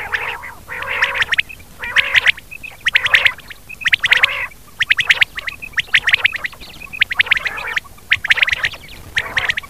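Rain quail calling: short bursts of rapid notes, repeated about once a second, about ten times in a row, over a faint steady hum.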